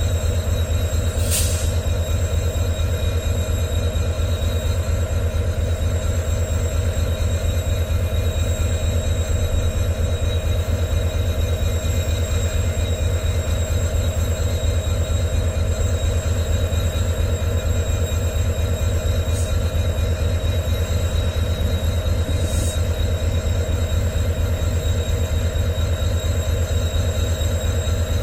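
EMD 16-cylinder 710G3B two-stroke diesel engine of a WDG4 locomotive idling with a steady low hum. A few brief high ticks sound about a second in and again near 19 and 22 seconds.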